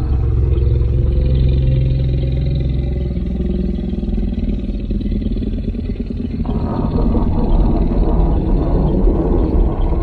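Sound effect of a Spinosaurus call: a deep, low growl with slowly rising tones, changing abruptly about six seconds in to a harsher, fuller roar-like sound.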